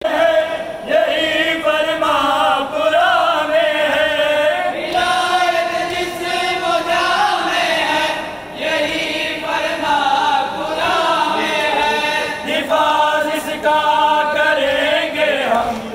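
A group of voices chanting a noha, a Muharram mourning lament, in a wavering, bending melody, with a short pause about eight seconds in.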